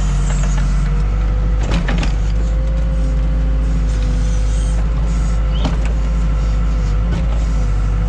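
Case 580K backhoe's diesel engine running steadily under work, with a constant whine over the engine and a few short knocks about two seconds in and again near six seconds.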